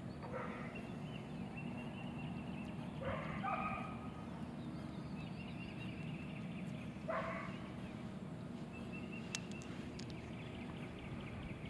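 Three short animal calls a few seconds apart, each under half a second, with faint thin high chirps between them, over a steady low hum.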